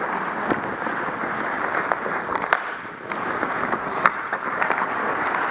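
Ice hockey skating heard from a body-worn camera: a steady rushing of skates on ice, broken by about five sharp clacks of sticks and puck.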